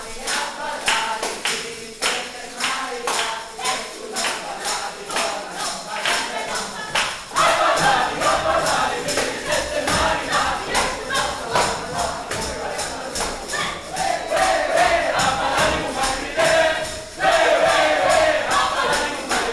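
Several tambourines beaten and jingled in a steady rhythm with hand-clapping, and a group of voices joining in singing from about seven seconds in.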